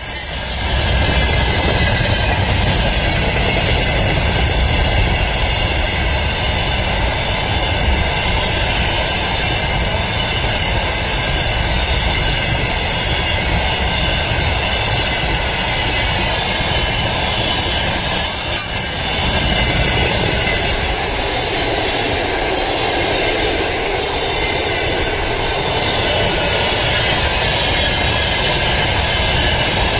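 Flatcars, gondolas and boxcars of a long freight train rolling past: a steady rumble of wheels on rail with steady high ringing tones above it. The sound dips briefly about two-thirds of the way through.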